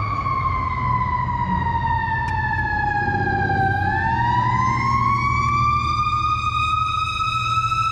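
Ambulance siren wailing: one slow sweep that falls in pitch to its lowest point about halfway through, then rises again, over a steady low hum.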